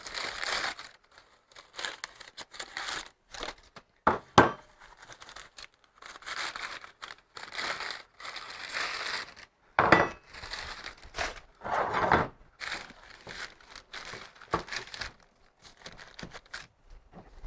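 Cardboard packaging being cut and torn open with a blade, with irregular crinkling and rustling of packing material and a few knocks.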